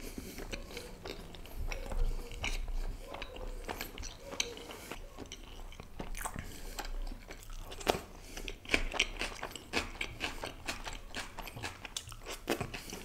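Close-miked chewing of butter naan with butter chicken: wet mouth clicks and smacks with soft crunches of the bread, coming faster in the second half.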